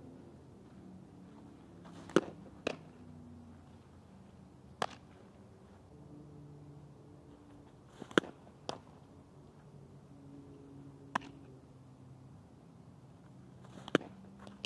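Several sharp pops of softball pitches, some in pairs about half a second apart, as the windmill pitches are thrown and the ball smacks into the catcher's leather mitt.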